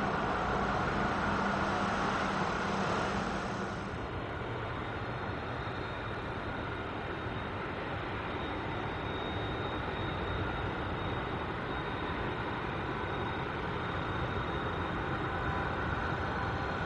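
McDonnell Douglas MD-11F trijet's jet engines: a loud rush of jet noise on the landing roll, which changes about four seconds in to a quieter, steady idle with a thin high whine as the freighter taxis.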